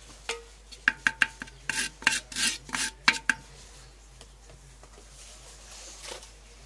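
Rubbing and scraping against an earthenware cooking pot: a run of short, rasping strokes in the first three and a half seconds or so, then quiet.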